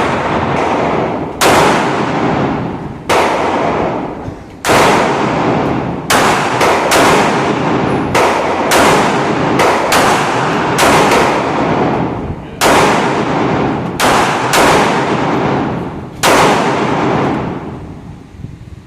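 Firearm shots at a shooting range: a string of about fifteen sharp reports at irregular spacing, closest together in the middle. Each shot is followed by a long echoing tail, and the shooting stops near the end.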